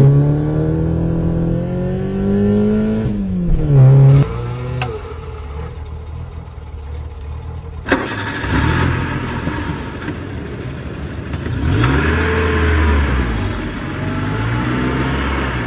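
Car engine revving up and down, several separate engine clips edited together, with abrupt changes about four and eight seconds in. The later part is rougher and noisier.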